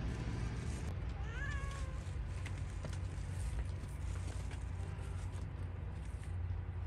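A single short, high call that rises and then levels off, about a second and a half in, over a steady low hum and a few faint knocks.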